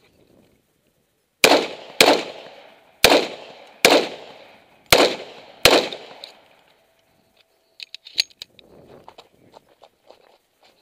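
Six pistol shots from a Springfield Armory TRP 1911 in uneven pairs over about four seconds, each ringing off briefly. A few sharp clicks and faint crunching steps on gravel follow.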